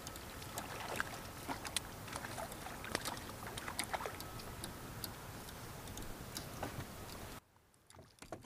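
Fishing reel and kayak while a bass caught on a jig is reeled in and landed: irregular clicks and taps over a steady hiss. The hiss cuts off suddenly about seven seconds in.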